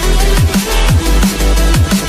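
Electronic drum and bass music with a steady fast beat: deep kick drums that drop in pitch about twice a second over a heavy bass line.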